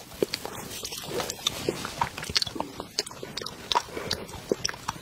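Close-miked eating sounds: biting and chewing, with many sharp, irregular clicks and smacks several times a second.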